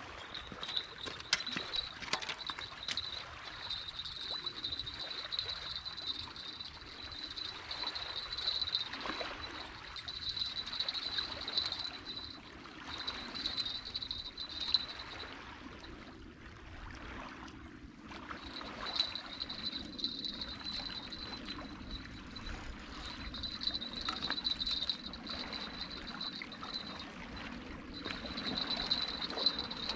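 Small waves lapping and trickling on a rocky lake shore. A steady high-pitched whine runs over it and drops out for a couple of seconds midway.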